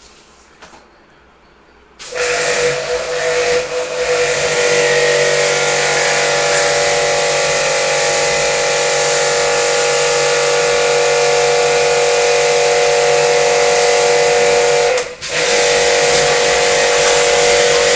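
Electric pressure washer (jet pump) spraying water during AC cleaning: it starts suddenly about two seconds in with a steady motor whine under a loud hiss, and cuts out for a moment near the end before running on.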